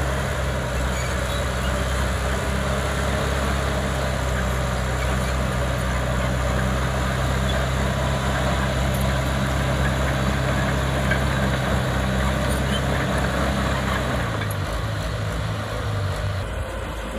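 Small crawler bulldozer's diesel engine running steadily under load as the blade pushes soil. Its note drops about three-quarters of the way through.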